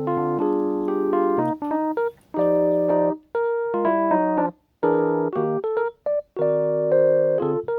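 Background music: electric piano chords played in short phrases, with brief gaps of silence between them.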